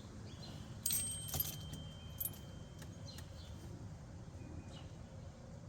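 Car keys jingling and clinking briefly as they are handled, starting about a second in, with a faint high steady tone underneath.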